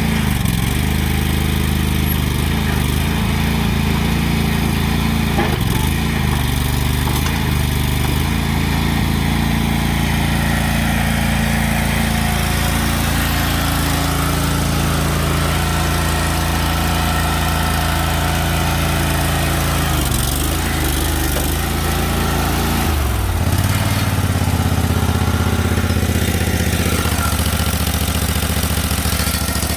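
Engine of a 2003 Lay-Mor LB-30 backhoe running steadily. About three-quarters of the way through, its speed steps up and the pitch rises, then holds.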